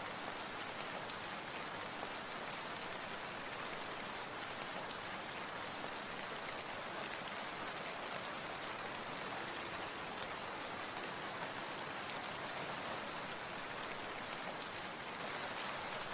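Steady rain falling, an even hiss of drops with faint scattered ticks.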